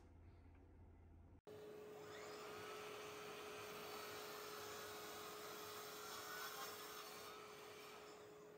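Festool sliding mitre saw and its dust extractor running, heard from a distance: a steady whine over a hiss. It starts abruptly about a second and a half in.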